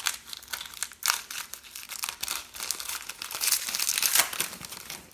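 A Panini Prizm trading-card pack wrapper being crinkled and torn open by hand, giving irregular crackles that stop near the end.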